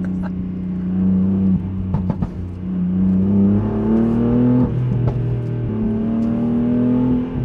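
Tuned BMW M4's twin-turbo inline-six and loud-mode exhaust, heard from inside the cabin, pulling under acceleration. Its pitch climbs twice and drops back after each climb, at the gear changes.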